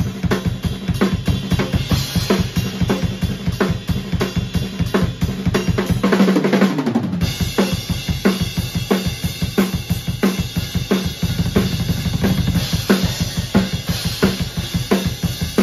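Acoustic drum kit played in a fast solo: rapid bass drum strokes under snare and cymbal hits. A sustained low tone underneath cuts out for about a second around the middle, then returns.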